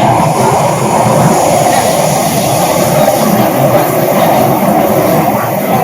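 Shenzhen Metro Bombardier MOVIA 456 train running: a loud, steady rumble and rush of noise without a clear tone.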